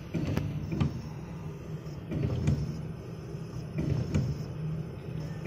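Desktop soldering robot's motion axes moving the soldering iron and solder feeder from joint to joint: several short mechanical whirs with sharp clicks over a steady low hum.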